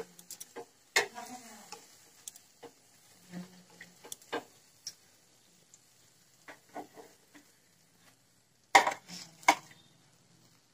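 Metal wire skimmer clinking and scraping against the kadai and a ceramic plate as fried fritters are scooped out of the oil and tipped onto the plate: scattered light clicks, with two louder clatters about nine seconds in.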